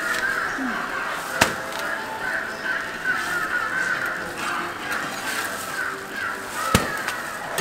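Two sharp knocks about five seconds apart, the metal scraper striking the jianbing griddle, over a steady raspy hiss of cooking and kitchen noise.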